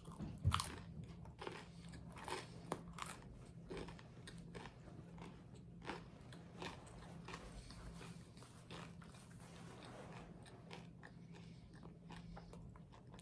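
Close-miked chewing with crisp crunching, a louder bite about half a second in, then many small crackles of chewing.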